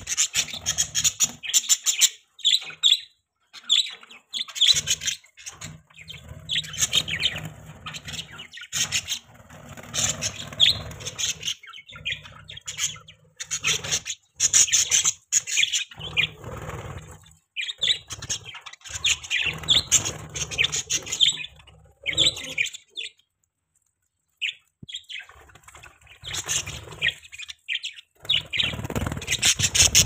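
A flock of budgerigars chattering and chirping without pause, with wing flutters as birds fly about. There is a brief break of near silence about two-thirds of the way through.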